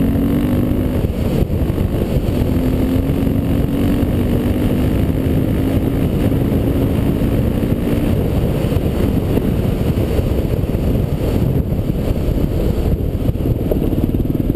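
Honda XR400's single-cylinder four-stroke engine running at speed on loose gravel, its steady engine note heavily mixed with low rumbling road and wind noise. The engine note fades into the noise about halfway through.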